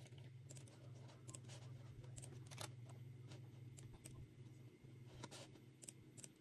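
Faint, irregular clicking of a computer mouse over a low steady hum.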